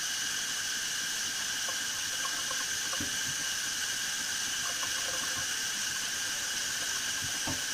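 Kitchen faucet running a thin, steady stream of water into a stainless steel sink, splashing near the drain.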